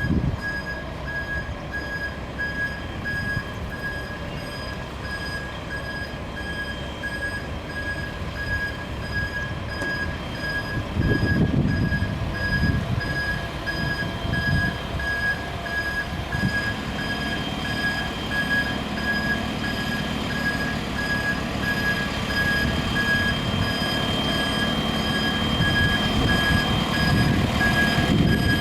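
JCB 3CX backhoe loader's reversing alarm beeping steadily over its running diesel engine, the engine rising in loudness around the middle and again near the end.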